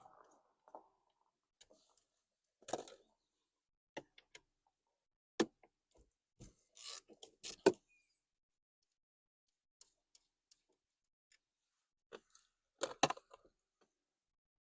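Scattered clicks, taps and short scrapes of hand work on a car's steering column, with a quick cluster of sharp clicks near the end.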